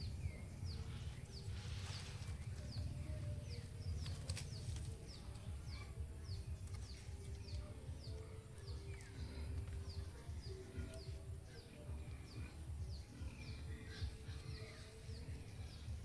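A bird calling a short, high, falling chirp over and over, about two a second, over a low steady rumble.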